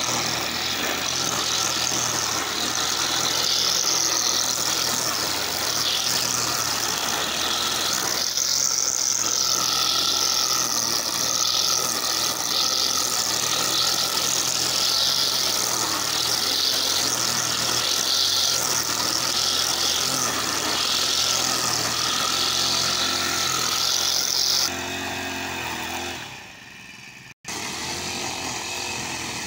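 Petrol brush cutter running steadily at high speed, its nylon line head cutting through grass. Near the end the sound drops away and almost cuts out for an instant, then the engine comes back a little quieter.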